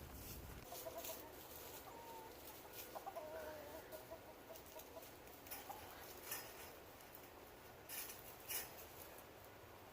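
Chickens clucking faintly, with a few short sharp clicks or rustles later on.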